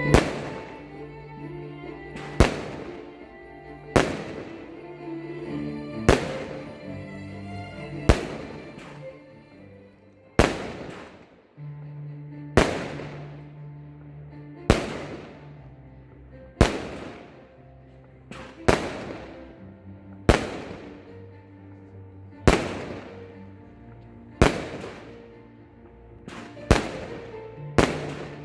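Consumer firework batteries firing, a sharp bang about every two seconds, each with a fading tail, over background music.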